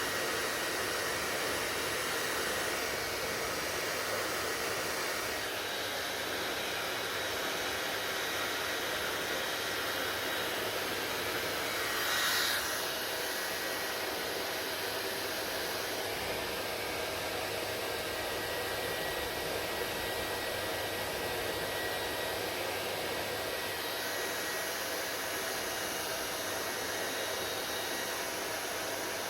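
Hair dryer blowing steadily, a continuous rushing hiss with a thin steady whine, briefly louder about twelve seconds in.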